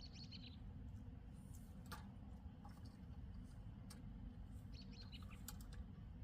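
A small songbird chirping in quick, faint twitters, once at the start and again near the end, over a steady low outdoor rumble, with a few faint clicks between.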